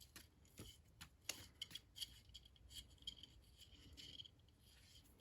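Faint handling of a folding knife and its small metal pin: scattered light metallic clicks, with a soft scraping rub about two to four seconds in.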